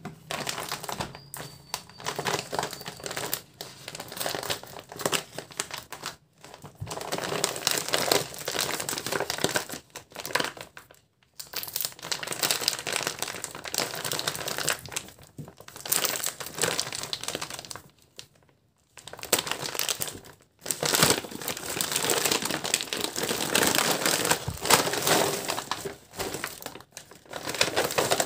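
Stiff plastic packaging crinkling and rustling as a parcel wrapped in a pet-food bag is handled, cut into with scissors and pulled open. It comes in several spells with short pauses between them.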